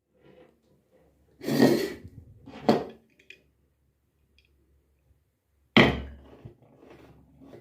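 Knocks and clanks of metal parts and tools being handled and set down. A scraping clatter comes about one and a half seconds in, then a sharp knock, and the loudest knock, with a short ring, comes near six seconds in, with light handling noise in between.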